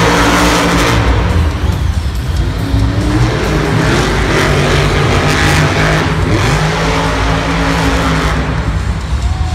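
Monster truck's supercharged V8 engine running loud and revving, its pitch rising and falling a few times, with arena music playing underneath.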